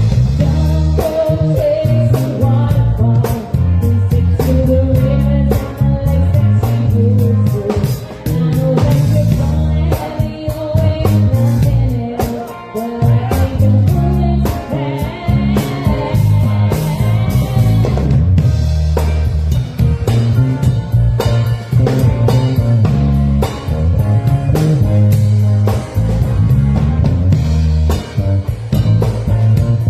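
A live band playing a funk-rock cover: drum kit, bass guitar and electric guitar, with a singer's voice over them.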